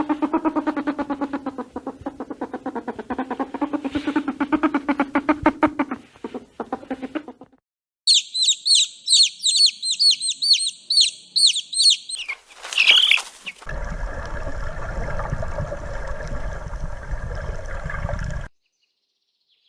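A sequence of different animal calls. First a fast pulsing call lasting about seven seconds. Then a run of high bird chirps, each falling in pitch, about two or three a second. Last comes a steady droning sound that cuts off suddenly.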